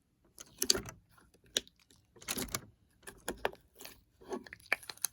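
Thick slime being squished and pressed by hand, giving irregular sticky clicks and pops.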